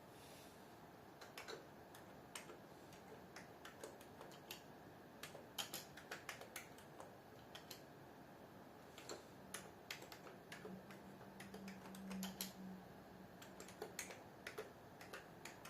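Faint, irregular clicks of keys being typed on a computer keyboard, entering a reply to the Racter program.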